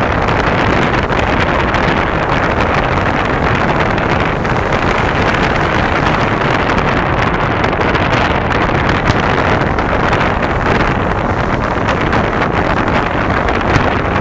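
Steady rushing noise of wind on the microphone at the seashore, with two brief faint thuds from distant fireworks shells, about nine seconds in and near the end.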